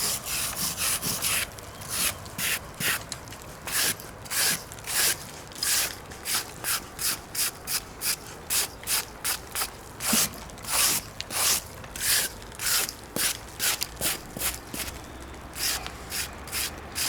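Rapid, repeated scraping strokes of a hand tool against a cement wall, about two to three a second, clearing off loose dust to leave a clean base for fresh cement.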